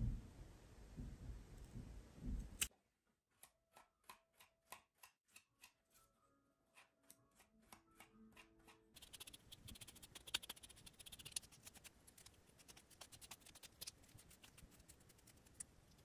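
Scissors snipping cotton macrame cord, then soft, evenly spaced clicks. From about nine seconds in, a fine plastic comb is drawn through the frayed cotton-cord fringe again and again, giving a quiet, rapid scratching.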